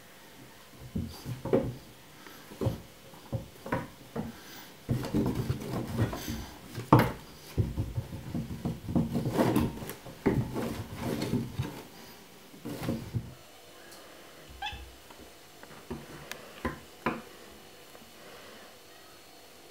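A kitten scampering, leaping and landing on a wooden floor as it play-fights with a hand, heard as a string of thumps and scuffles. The sounds are busiest in the middle and thin out to a few scattered taps over the last several seconds.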